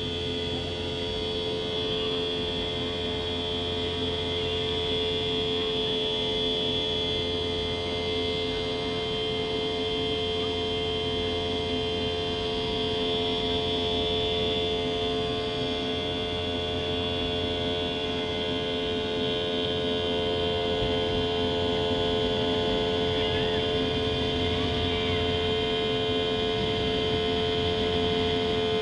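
Jet airliner's turbofan engine at takeoff thrust, heard inside the cabin beside it: a steady whine with a strong hum and high tones over a low runway rumble. The rumble drops away near the end as the plane lifts off.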